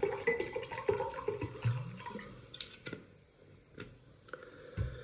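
Water poured from a plastic bottle into a drinking glass, the splashing fading after two or three seconds, followed by a few light clicks of the bottle being handled and a low knock near the end.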